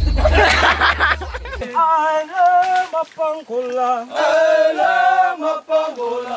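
Music with a heavy bass line that cuts off about a second and a half in, followed by a voice singing unaccompanied in held, wavering notes.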